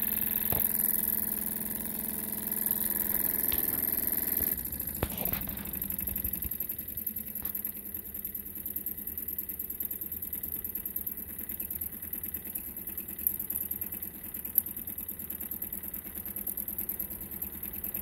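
Small Jensen toy steam engine running steadily at speed, a fast even mechanical rhythm. A steady hum heard with it stops suddenly about four and a half seconds in, and two sharp clicks come near the end.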